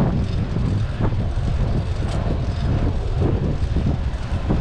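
Wind buffeting the microphone over a steady low rumble of traffic.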